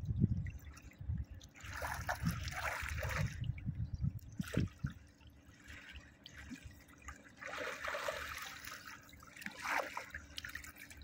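Swimming-pool water splashing and trickling as swimmers move through it, in two stretches about a second or two in and again near the end.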